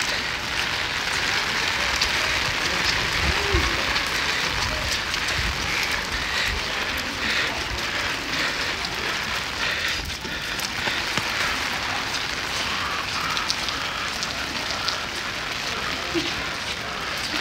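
Steady rain falling and pattering on surfaces, with many small drop hits throughout. A brief low rumble comes about three and a half seconds in.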